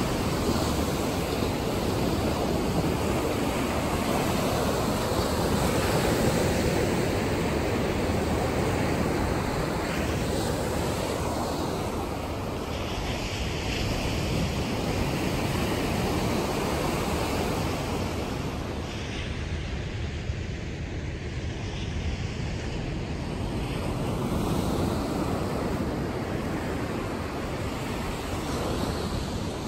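Ocean surf breaking and washing up a sandy beach, a continuous rushing that swells and eases, with wind rumbling on the microphone.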